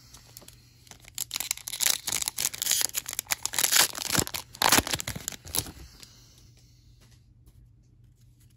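Foil wrapper of a Panini Absolute Football trading-card pack being torn open and crinkled in the hands: a dense crackling rustle from about a second in, loudest near the middle, stopping at about six seconds.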